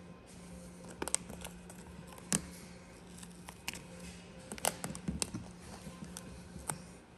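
Scattered light clicks and taps of vinyl wrap film being handled and worked onto a car door handle, over a faint steady hum.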